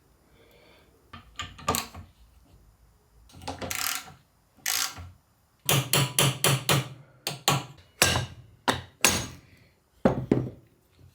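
Hammer tapping on gear lever parts while a Land Rover Series gear stick is reassembled: scattered single knocks, then a quick run of about half a dozen blows a little over halfway through, and a few more knocks near the end.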